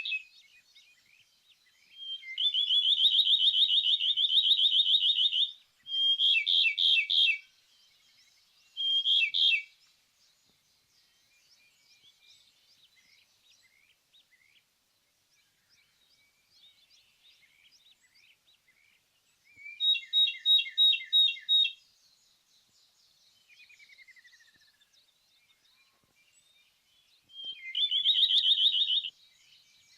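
Ryukyu robin (akahige) singing: loud phrases of rapid, rattling trilled notes, the longest lasting about three seconds, repeated five times with pauses between, and faint high calls in the gaps.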